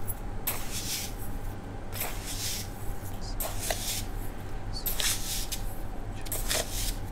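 Salt sprinkled by the spoonful onto a pot of raw chicken wings: repeated short hissing showers of grains landing on the meat, over a steady low hum.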